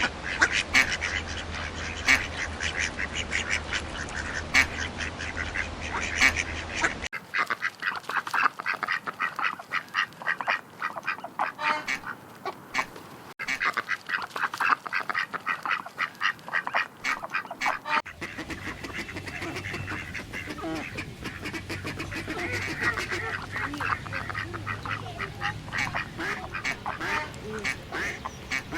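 Ducks quacking: many rapid, overlapping quacks. The background changes abruptly twice, as if separate recordings are spliced together.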